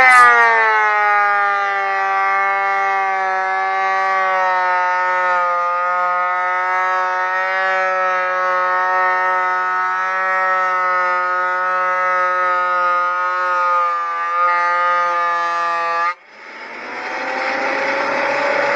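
Delta 22-540 12-inch portable planer's motor dropping in pitch as it loads down, then holding a steady whine under load while feeding a board. About 16 seconds in it cuts out suddenly, then spins back up with a rising whine.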